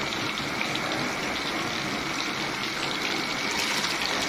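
Spiced curry boiling in a large aluminium pot: a steady bubbling hiss.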